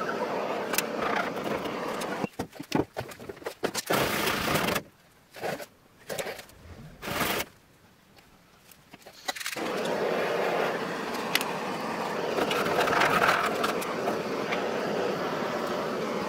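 Hand scraper scraping old undercoating and rust off a steel car wheel arch, broken up by timelapse cuts. The sound comes in choppy fragments with clicks a few seconds in and short near-silent gaps in the middle, then continuous scraping.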